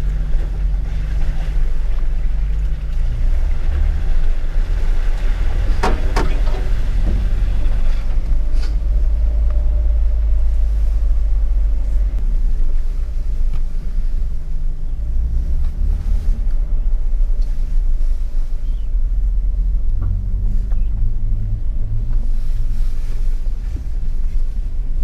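Jeep engine running low and steady as it crawls along an off-road trail, with a cluster of sharp knocks about six seconds in.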